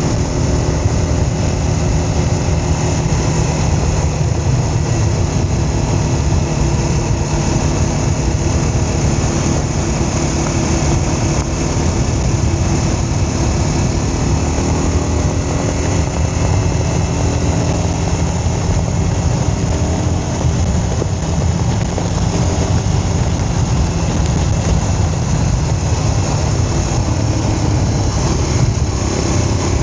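A vehicle's engine running steadily while under way, with a constant low rumble of road and travel noise; the engine note drifts a little up and down with speed.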